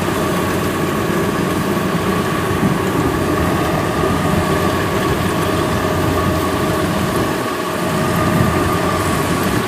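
Kubota DC93 combine harvester running steadily: a constant diesel-engine drone with a steady high whine from the machinery over it.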